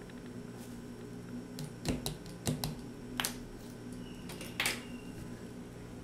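A few short, light plastic clicks and taps from a measuring spoon and a plastic blender jar being handled, about four spread over the seconds, over a faint steady hum.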